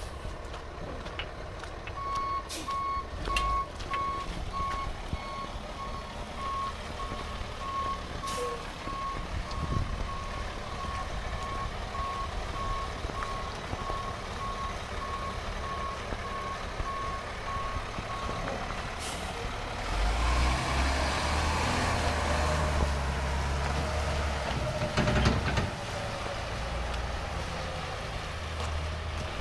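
2012 Peterbilt 337 dump truck's backup alarm beeping at an even pace for about sixteen seconds over its PACCAR PX-8 8.3-litre diesel, with a few short air hisses. About twenty seconds in the beeping has stopped and the diesel runs louder for several seconds as the truck drives forward.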